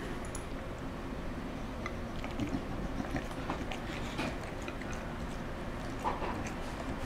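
A bulldog eating pieces of cake off a plate: irregular chewing and biting clicks, starting a couple of seconds in, over a steady low hum.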